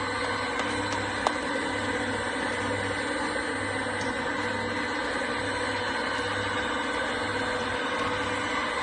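Stainless-steel horizontal ribbon mixer running, a steady machine hum with a low throb about every three-quarters of a second as the ribbon agitator turns through food powder. A single sharp click about a second in.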